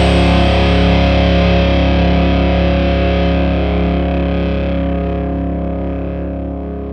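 Distorted electric guitar holding a sustained chord that slowly fades out, its upper ring dying away first.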